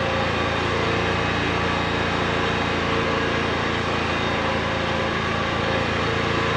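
Champion 220-volt inverter generator running steadily, a constant engine hum with no change in speed.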